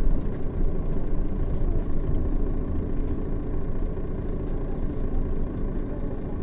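Setra S 315 NF city bus's diesel engine running, heard from inside the passenger cabin, slowly growing quieter.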